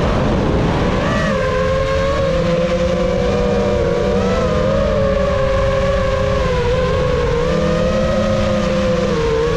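FPV quadcopter's motors and propellers whining in flight, the pitch wavering up and down with throttle, over low wind rumble. A brief rush of noise comes in the first second.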